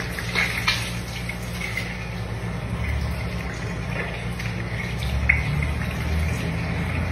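Water running from a tap into a bathroom sink, with a low steady hum beneath it and a few light clicks.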